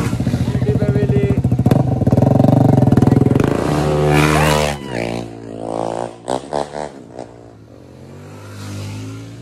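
A motorcycle engine passes close by, loud with a fast throbbing beat, then fades as the bike moves off. From about five seconds in, another motorcycle further down the road revs in several short bursts, each rising in pitch, before the engine sound dies away.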